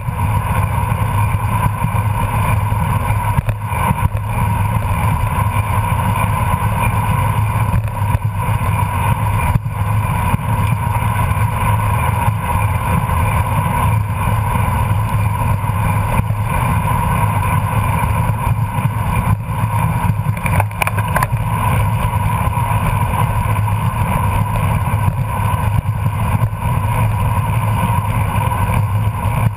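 Wind rushing over a bicycle-mounted camera's microphone while riding at about 23 mph, with a steady low rumble of tyres on asphalt. A few brief knocks break in.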